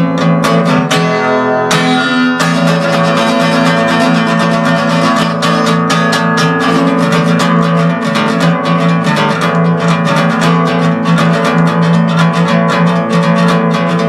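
Acoustic guitar strummed in a steady rhythm as a solo instrumental passage. The strumming eases about a second in, letting chords ring briefly, then resumes.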